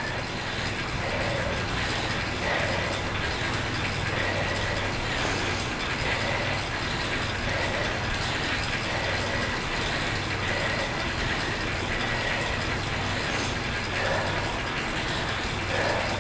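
Bicycle drivetrain and indoor trainer running steadily under a hard, even pedalling effort, a constant whir with a steady hum and a faint regular pulse that comes back about every two-thirds of a second.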